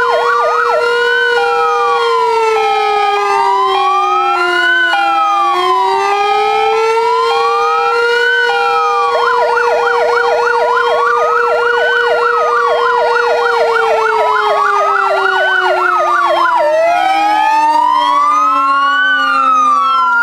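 Modulated electronic fire-engine sirens sounding together as a commemorative signal, not an emergency call. One holds a slow rising-and-falling wail throughout. A fast yelp joins in at the start and again in the middle, and a two-note tone alternates briefly. Under them a steadier, lower siren tone slides down in pitch over the last few seconds.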